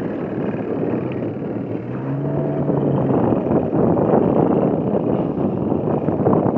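Fishing boat under way: its engine running under a loud, rough rush of water and wind noise. A brief low tone sounds about two seconds in.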